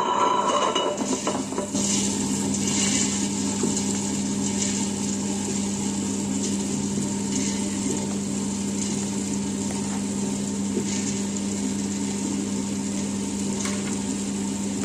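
Electric tabletop wet grinder running steadily, its two stone rollers turning in the steel drum as soaked urad dal is poured in and begins to grind, with a steady motor hum under the rubbing of stone on dal.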